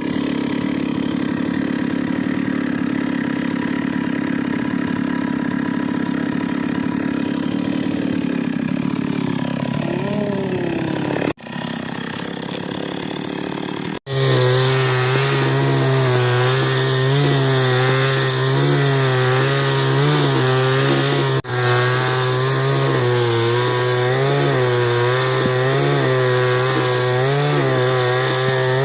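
Chainsaw engine running at high speed and cutting wood, its pitch wavering up and down as the load changes. It is heard in several spliced clips that break off abruptly.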